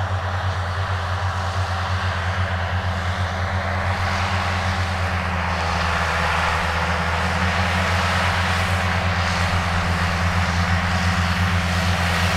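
John Deere 7810's six-cylinder diesel engine running steadily under load as a low, even drone, powering front and rear disc mowers cutting grass.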